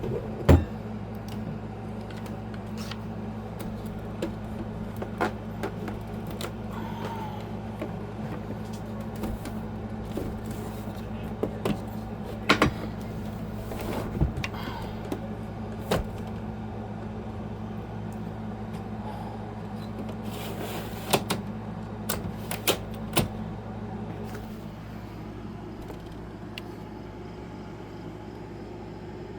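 A steady low mechanical hum with scattered sharp knocks and clicks, the loudest about half a second in and a cluster of them a little over twenty seconds in.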